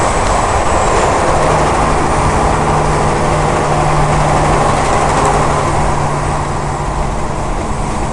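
Highway driving noise with a semi truck running close alongside: a loud steady rush of engine, tyre and wind noise with a low engine drone, easing a little about six seconds in as the truck pulls ahead.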